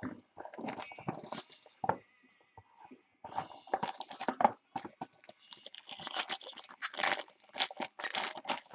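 Trading-card packaging being handled: irregular crinkling and tearing of wrappers and plastic, in uneven bursts.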